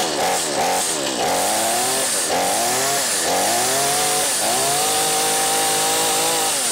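XtremepowerUS 45cc two-stroke gas chainsaw engine running just after a cold start, revved up and down several times on the throttle trigger, then held at high revs for about two seconds before dropping back near the end.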